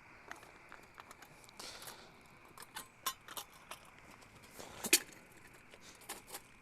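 Light metallic clinks and scattered clicks of a small folding stove and fuel can being handled and fitted together, with one sharper click about five seconds in.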